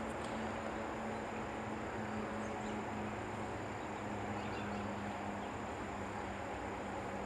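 Steady outdoor background noise at a creek, with a faint steady low hum and a few faint high chirps.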